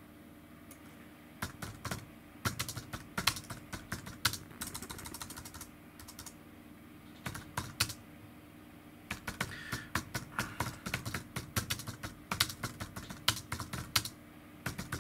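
Typing on a computer keyboard: quick clusters of key clicks, starting about a second and a half in, pausing briefly around the middle, then running on more densely.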